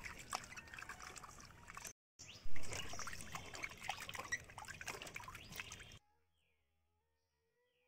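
Water splashing and sloshing in a stainless steel bowl as a hand rubs and turns cut pieces of carp to wash them, with small wet knocks of fish against the metal. A louder splash comes about two and a half seconds in, and the washing sounds stop abruptly about three quarters of the way through.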